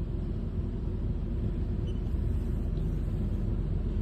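Steady low hum of a press brake's motor running idle, with no distinct strokes or knocks.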